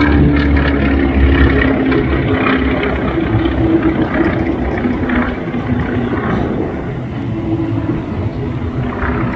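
Twin radial engines of a Beechcraft Model 18 (Pratt & Whitney R-985 Wasp Juniors) droning at power as the aircraft climbs away, gradually getting fainter.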